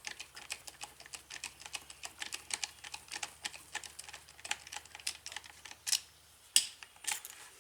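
A screwdriver with a T20 Torx bit backing a long screw out of a drill's plastic housing: a quick run of light, sharp clicks several times a second, with two louder clicks near the end.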